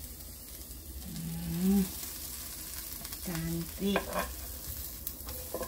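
Egg-coated bread sandwich sizzling as it fries in a frying pan, a steady hiss, while a slotted spatula pushes and turns it, with a few light scrapes and taps of the spatula on the pan near the end.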